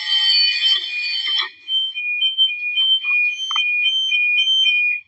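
Electronic door alarms sounding. For about the first second and a half several shrill tones overlap, then a single alarm alternates between two high-pitched tones several times a second until it cuts off suddenly near the end.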